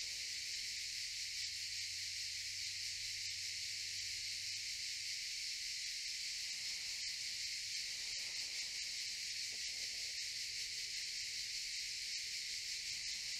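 A chorus of cicadas buzzing steadily in one continuous high-pitched drone.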